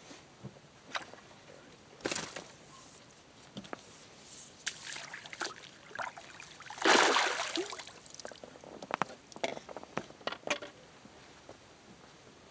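Water splashing and sloshing as a landing net is dipped and swished in the lake at the shore, with scattered small knocks and splashes. The loudest splash comes about seven seconds in and lasts about a second.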